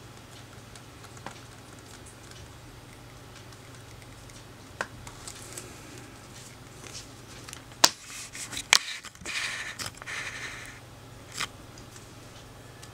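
Nikon F3 film camera with an MD-4 motor drive being operated: a few light mechanical clicks, then two sharp clicks about a second apart, followed by about a second of mechanical whirring and one more click.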